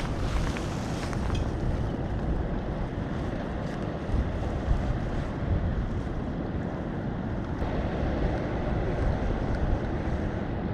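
Wind buffeting the microphone: a continuous low noise that rises and falls in gusts.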